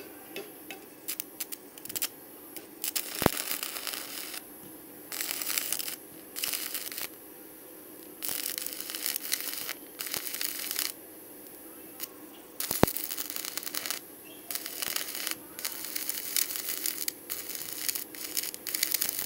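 Stick-welding arc from an Arc200 inverter welder burning a water-dipped 3.2 mm electrode, crackling in stop-start bursts as the arc is struck and restruck, with two sharp ticks. The jerky, sputtering arc comes from the wet flux coating cracking.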